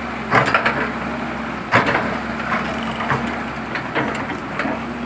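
Concrete cracking and crashing as a Hyundai excavator's bucket breaks into a building's wall and roof slab. There are two loud crashes about half a second and a second and three-quarters in, then smaller knocks of falling rubble, over the steady hum of the excavator's diesel engine.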